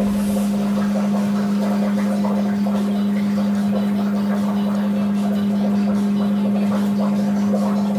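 A marine engine running steadily, a loud, even drone built on one strong low hum with fainter overtones, unchanging in pitch.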